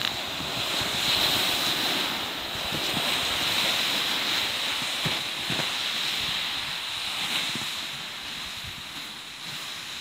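Pulk sleds and a plastic kayak dragged over snow on a tow line: a steady hiss and scrape of the hulls on the snow, with a few soft knocks about five seconds in, fading as they move away near the end.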